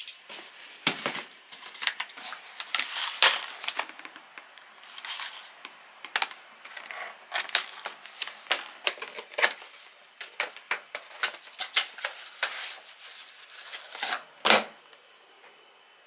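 Cardboard parcels being opened and unpacked by hand: quick, sharp crackles and rustles of cardboard flaps and plastic packaging, with a dull thump near the end.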